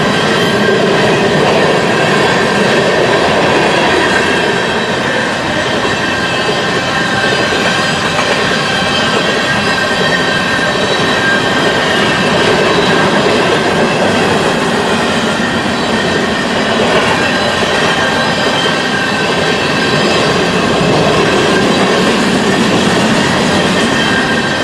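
A long freight train's cars, tank cars then covered hoppers, roll steadily past at a grade crossing. There is a continuous loud rumble and clatter of wheels on rail, with steady high-pitched tones running over it.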